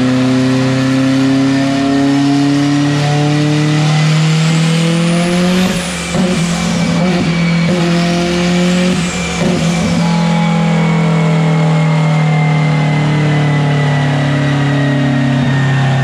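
Turbocharged Honda-engined Subaru Impreza race car running hard on a chassis dyno during a pull, its engine pitch holding fairly steady with two brief dips, about six and nine and a half seconds in. A thin high whine runs along with it, falling slowly.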